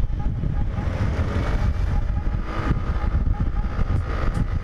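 Motorcycle riding along a road: wind rushing over the bike-mounted microphone, with the engine running underneath at a steady pace.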